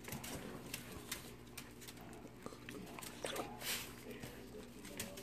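Small dogs moving about and begging for food on a tiled floor: scattered light clicks and taps throughout, with a faint dog whimper or sniff about three and a half seconds in.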